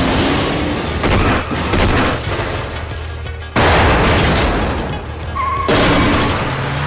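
Film sound effects of explosions and heavy gunfire over a music score. Three sudden loud blasts come about a second, three and a half seconds and nearly six seconds in, each followed by a rattle of shots and debris that dies away.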